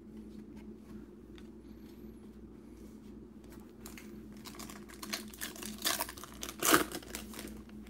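Trading-card pack's foil wrapper crinkling and tearing as it is opened by hand, a run of rustles starting about halfway through and loudest near the end. Before that only a faint low hum.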